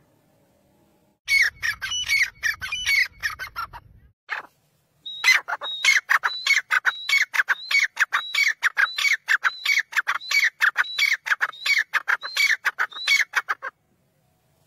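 Grey francolin (desi teetar) calling: a rapid series of loud repeated notes, each dropping in pitch. A short run comes about a second in, then a long unbroken run of about two to three notes a second that stops near the end.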